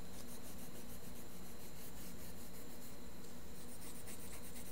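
Green coloured pencil scribbling on drawing paper, quick back-and-forth scratchy strokes as grass is coloured in.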